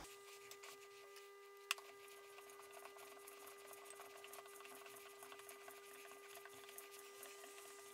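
Faint, irregular ticking and scraping of a hand die in a die stock cutting a thread on a metal rod clamped in a vise, with one sharper click about two seconds in, over a steady low hum.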